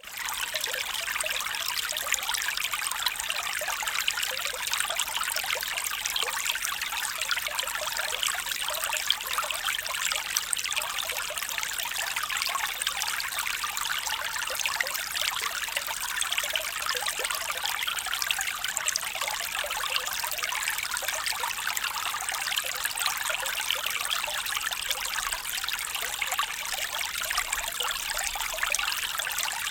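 A small stream trickling and babbling over stones, a steady bright splashing with no letup.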